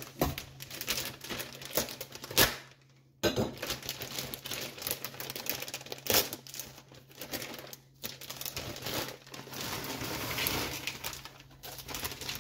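Plastic bag of shredded hash browns crinkling and rustling as it is handled and tipped out, with the potato shreds spilling into the bowl.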